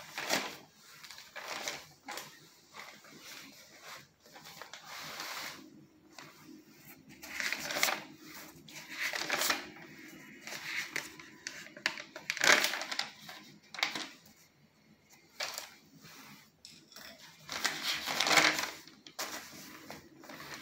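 Paper pages of a worn notebook being leafed through and rustled by hand, in irregular bursts.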